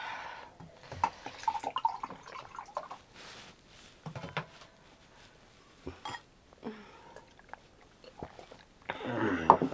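Close-up eating sounds: a person chewing mouthfuls of pork curry and rice, with scattered small clicks and taps. A louder voice-like sound comes near the end.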